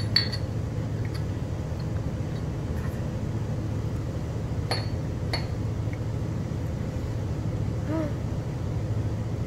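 Glass clinks as soju is poured from a green glass bottle into small shot glasses: one sharp clink right at the start and two more about five seconds in, over a steady low hum.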